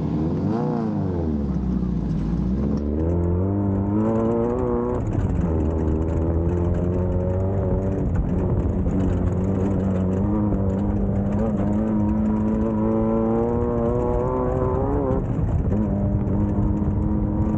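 Class 1600 off-road race buggy's air-cooled VW flat-four engine running hard. The revs climb and fall through the gears, holding fairly steady in the middle, with a brief dip and recovery near the end.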